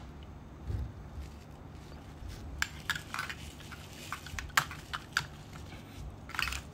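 Sharp metallic clicks and clinks of Zippo lighters being handled, a scattered run of them starting a couple of seconds in, over a low steady hum.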